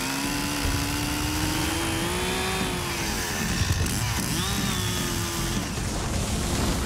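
Stihl two-stroke chainsaw at full throttle cutting through a dead, dry tree trunk. Its note climbs slowly, dips briefly about halfway as the chain bogs in the wood and recovers, then drops away about five and a half seconds in.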